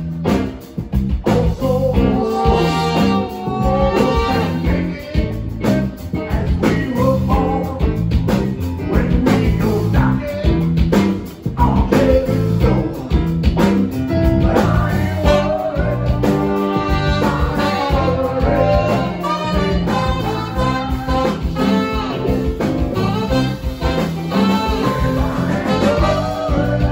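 A live blues band playing: electric guitars, bass guitar, drums and tenor saxophone in a steady groove.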